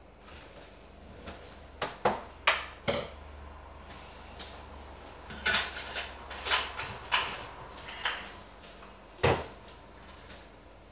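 A series of sharp knocks and clicks from plastic parts being handled: the filling funnel and hose at the reservoir, and a plastic coolant bottle on the countertop. The knocks come in a cluster of four about two seconds in, another run around six seconds, and one loud knock near the end.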